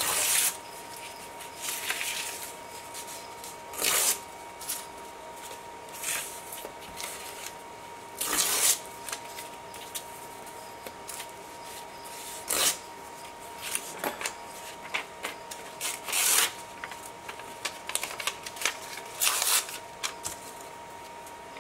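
Old book pages being torn into strips and handled by hand: short bursts of paper tearing and rustling every one to three seconds.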